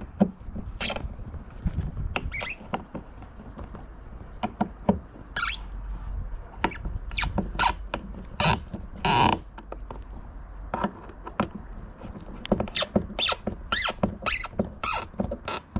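A screwdriver is turning bolts into a plastic transducer mount in a kayak's hull well. It makes irregular sharp clicks and squeaks of metal against plastic, which come thickest in the second half.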